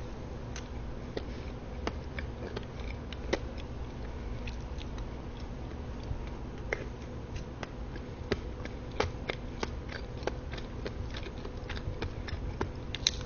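A person biting and chewing chocolate cake, with scattered soft mouth clicks over a steady low hum.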